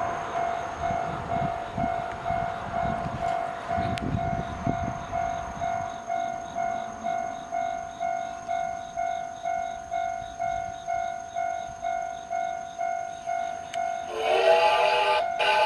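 Japanese railway level-crossing alarm ringing its electronic bell, an even pulse of about two strikes a second. Music comes in near the end.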